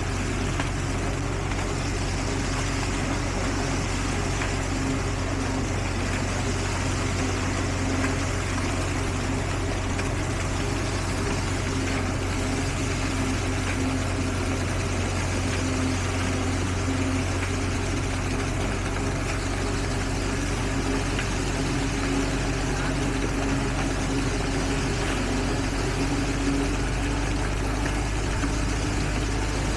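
Heavy diesel engine of construction machinery running steadily at constant speed, a low even hum that does not rise or fall.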